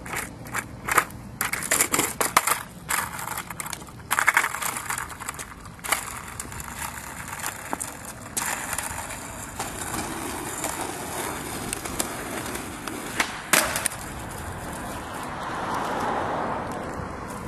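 Skateboard on rough asphalt: the deck and wheels clack against the pavement several times in the first few seconds, then the wheels roll with a steady rumble, and one more sharp clack comes later.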